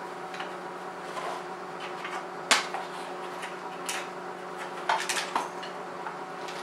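A few sharp clicks and knocks of hard plastic parts and tools as a broken, dried-out plastic adjuster is worked out of a BMW E39 headlight housing, over a steady hum.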